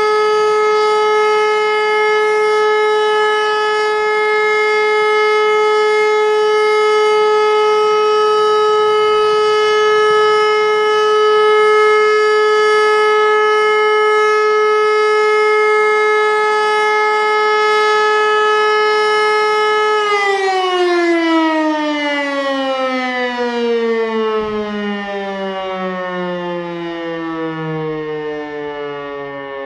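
E57 electromechanical siren sounding the all-clear (Entwarnung) signal, a single steady tone held without rising or falling. About 20 seconds in it is switched off and winds down, its pitch sliding steadily lower as the rotor slows.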